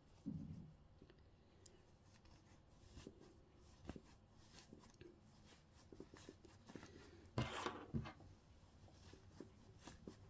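Faint rustling and rubbing of fingers pushing soft toy stuffing into a crocheted amigurumi head, with a brief louder rustle about three quarters of the way through.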